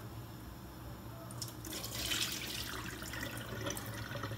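Rice being washed in a small steel pot in a stainless-steel sink: water sloshing as a hand swishes the grains, then the cloudy rinse water poured off into the sink, louder from about one and a half seconds in.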